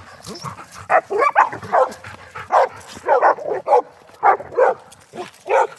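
Labrador retrievers yipping and barking excitedly as a walk begins, about a dozen short high calls in quick succession.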